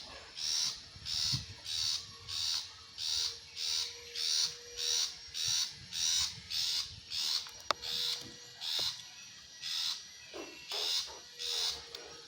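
Long-tailed shrike (cendet) giving a harsh, rasping call over and over, about one and a half calls a second in an even rhythm.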